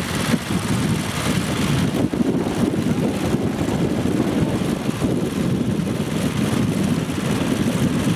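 Motoculteur (two-wheel walking tractor) engine running steadily under load.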